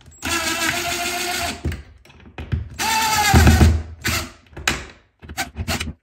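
RIDGID cordless driver driving a screw through a towel-ring mounting bracket into a drywall anchor: two longer motor runs, the second slowing in pitch as the screw pulls tight, then several short trigger bursts snugging it down.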